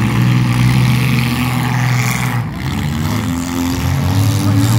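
Demolition derby car engines running loudly in the arena, one revving up in pitch near the end.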